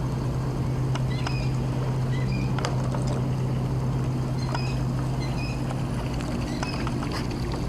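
A steady low mechanical hum, with scattered short high chirps and a few light clicks over it.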